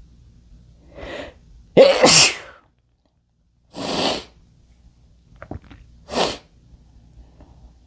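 A man sneezing: a short in-breath about a second in, then one loud, explosive sneeze. Two shorter breathy bursts of air follow.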